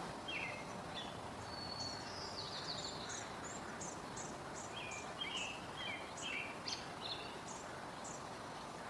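Small songbirds chirping: many short, high chirps and brief whistled notes, repeated throughout over a steady background hiss of outdoor noise.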